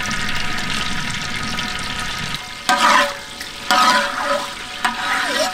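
Oil sizzling in a large aluminium pot as a lump of ghee melts in it, with a metal ladle stirring and scraping the pot in a few louder strokes from about two and a half seconds in.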